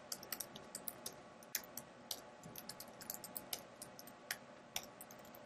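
Typing on a computer keyboard: faint, irregular key clicks, some in quick runs.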